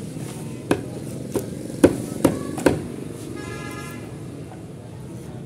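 Large knife chopping through fish onto a wooden chopping block: five chops in the first three seconds, the loudest about two seconds in, over a steady low background rumble. A brief faint high-pitched tone sounds just past the middle.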